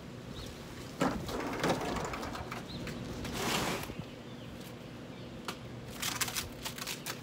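Packing material being pulled and rustled off a new lawn mower, in two scraping, rustling stretches, then a run of light clicks and taps. A few faint bird chirps are in the background.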